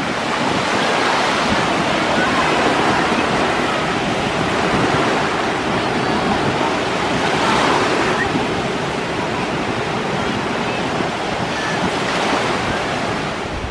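Small waves breaking and washing in the shallows at the shoreline, a steady surf hiss that swells a little about halfway through and again near the end.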